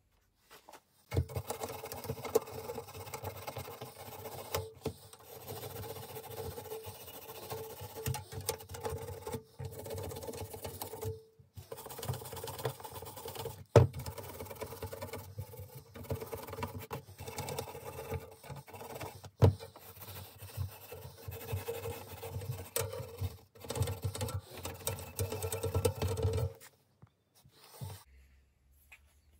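A small electric tool's motor running steadily with a scraping contact as it works over the metal frame and springs of a vintage rubber bicycle saddle. It pauses briefly near the middle, with two sharp knocks along the way, and stops shortly before the end.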